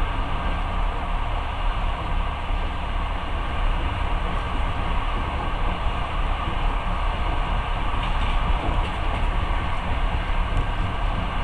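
Passenger train running, heard from inside the carriage: a steady low rumble with wheel and rail noise.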